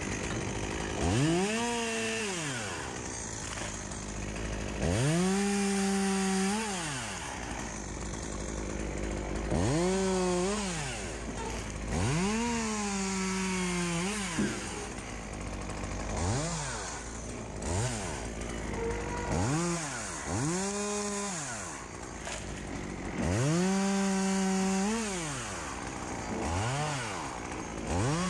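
Petrol chainsaw cutting black poplar wood in repeated bursts. About eight times it revs up to full throttle, holds there for one to two seconds, then drops back toward idle.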